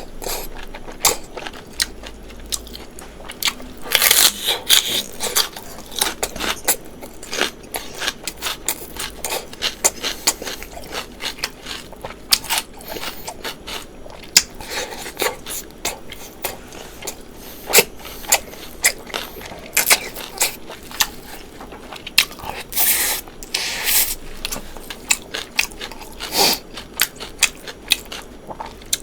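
A person chewing and biting food close to the microphone: steady sharp wet clicks and smacks, with a few louder half-second crunching bites, one a few seconds in and two close together near the end.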